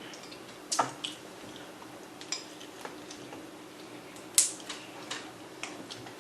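Scattered crackles and clicks of cooked shrimp shells and legs being cracked and peeled by hand, with a sharper snap about four and a half seconds in, over a faint steady hum.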